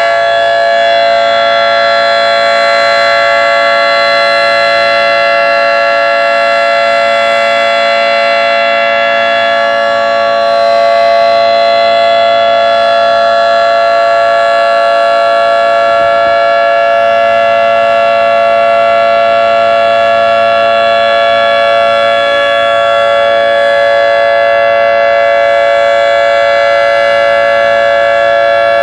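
Federal Signal 2T22 dual-tone tornado siren sounding its alert signal: a loud, steady chord held at constant pitch without wailing up or down.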